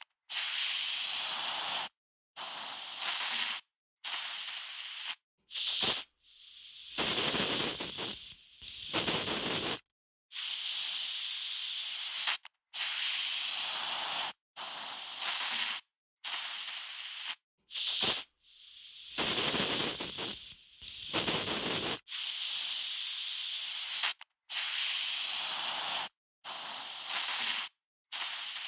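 Aerosol spray can sprayed in a string of short bursts, each a second or two of hiss that starts and stops sharply, with brief silent gaps between them; a few sprays sound fuller than the rest.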